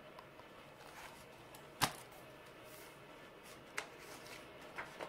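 A hardcover picture book being handled and its pages turned: soft paper handling with one sharp knock about two seconds in and a couple of fainter clicks near the end.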